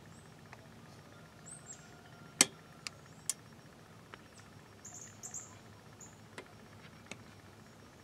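Quiet outdoor background with a few short, high bird chirps and several sharp clicks or taps, the loudest about two and a half seconds in, followed by two more within the next second.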